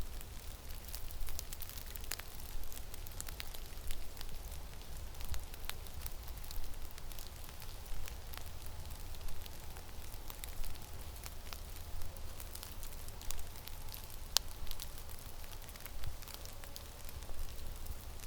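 Blizzard wind rumbling on the microphone, rising and falling in gusts, with many small sharp ticks and crackles scattered throughout.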